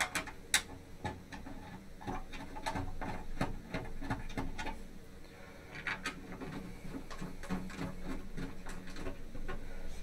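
A screwdriver driving two small screws into the cover of an MSI MAG 360R AIO cooler's radiator: a run of light, irregular metal clicks and ticks, with a sharper click about half a second in.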